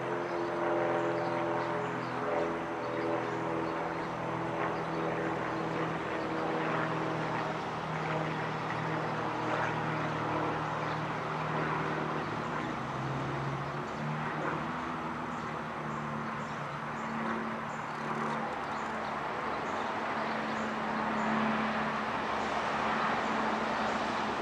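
Airplane flying high overhead: a steady drone with a low hum that shifts in pitch partway through, and a broader rushing noise that grows towards the end.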